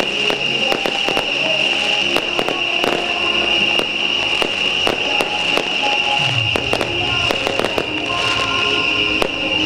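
Beehive rocket barrage (bee-hive fireworks): swarms of small bottle rockets fired from a rack, giving a dense, irregular stream of sharp cracks and pops over a steady shrill hiss.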